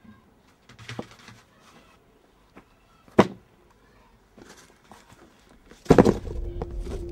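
Things being set down on the ground: a sharp knock about three seconds in as a plastic motor-oil jug is put down, and a heavier thump just before six seconds as a taped cardboard box of books is dropped beside it, with quieter rustles and knocks between. Music starts right after the thump.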